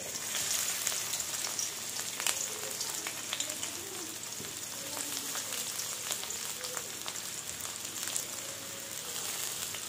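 Sliced onion frying in hot mustard oil in a kadai: a steady sizzling hiss with many small crackles and pops.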